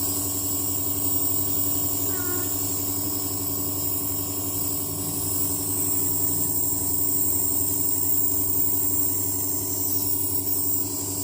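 Compressor nebulizer running steadily: a constant motor hum with a hiss of mist above it.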